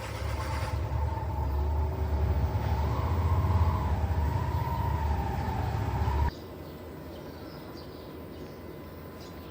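LG T2512VBTB washing machine's BLDC motor spinning the drum in a spin-only test: a loud low rumble with a wavering whine, which cuts off suddenly about six seconds in.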